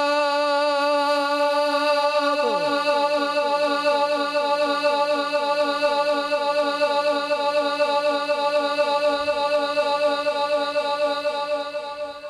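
A man's voice reciting Quranic verse over a PA system, holding one long wavering note on the end of a word. From about two seconds in, a quick falling sweep repeats about four times a second beneath the note, and the note fades away near the end.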